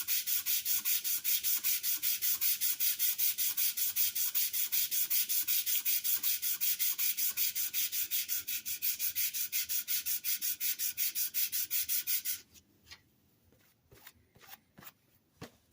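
The back of a steel plane iron being lapped flat on sandpaper, rubbed back and forth in a steady rhythmic scraping of about four or five strokes a second. The scraping stops about twelve seconds in, and a few light clicks follow.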